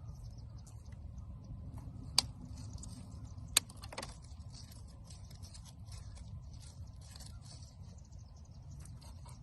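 Small metal objects clicking and clinking, three sharp clicks at about two seconds in, three and a half seconds in and four seconds in, typical of magnet-fishing finds knocking against a magnet as they are handled. Insects chirp steadily in the background over a low rumble.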